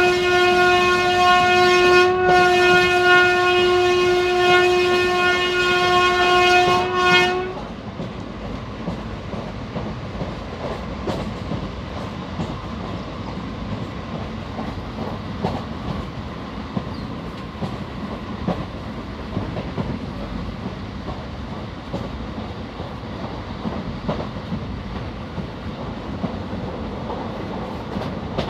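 Indian Railways train horn sounding a long, loud blast, broken briefly about two seconds in and cut off at about seven and a half seconds. After it comes the steady rumble of the moving train, with faint clicks of wheels over rail joints.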